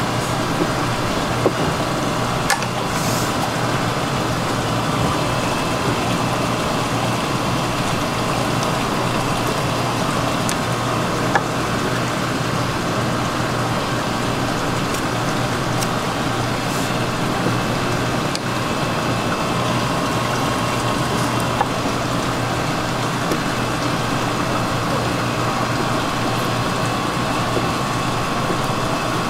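Steady background din with a few faint steady tones and an occasional short click.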